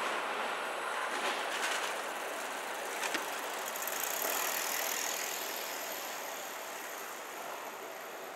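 Two-car Tobu Kameido Line electric train running past, its noise slowly fading as it moves away. There are a few sharp clicks in the first three seconds and a faint high-pitched whine in the second half.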